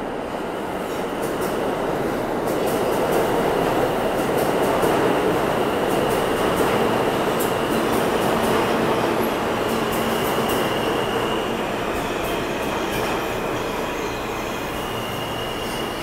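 R160-series New York City subway train moving through an underground station: a loud, steady rumble of wheels on rail that swells toward the middle and eases off, with a thin high wheel squeal coming and going.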